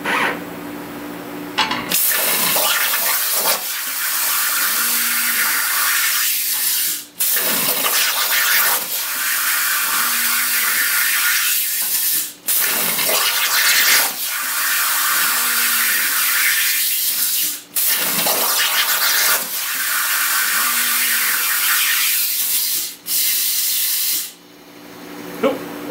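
A Hypertherm Powermax65 plasma torch on a CNC table cuts a series of straight lines in 3/16-inch mild steel with a loud, steady hiss. The hiss breaks off for an instant about every five seconds as the arc stops between lines, and the last cut stops short after about a second.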